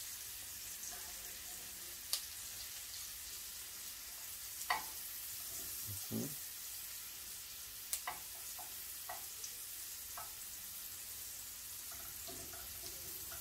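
Trout fillet frying in oil in a skillet: a steady sizzle with a few sharp pops scattered through it.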